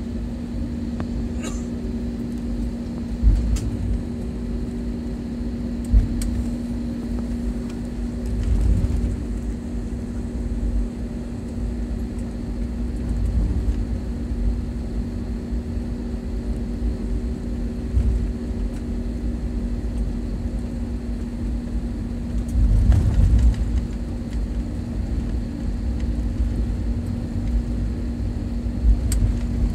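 Cabin noise of a jet airliner taxiing, heard from a window seat over the wing: a steady engine hum with a held low tone and a low rumble that swells briefly now and then. A few short knocks stand out, two in the first six seconds and one near the end.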